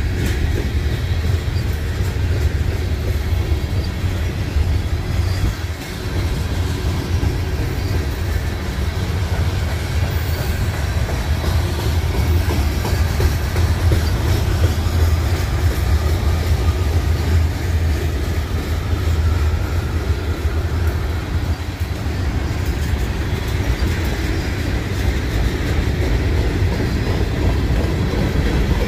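Freight cars of a long CN freight train rolling past: a steady low rumble of steel wheels on rail, with light clicking as the wheels cross rail joints.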